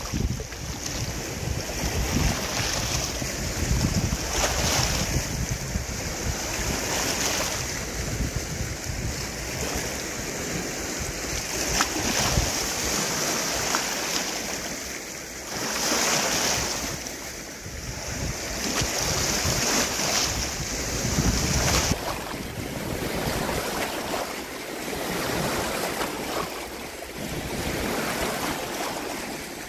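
Wind-driven waves washing in, swelling and fading every few seconds, with wind buffeting the microphone.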